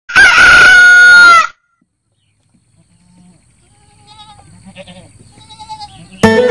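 A goat bleats loudly once for about a second and a half, a wavering high-pitched call. A few fainter bleats follow, and acoustic guitar music starts near the end.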